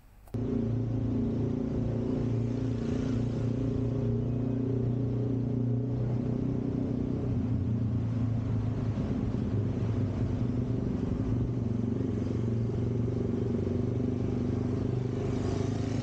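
A motor vehicle's engine running steadily at cruising speed, with road and wind noise, heard from the moving vehicle. Near the end the noise swells briefly as another motorbike comes alongside.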